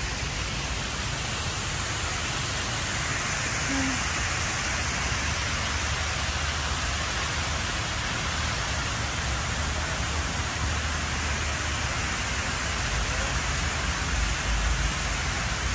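Water pouring down the tall inner faces of the Hines Waterwall fountain, a steady even rush of falling water.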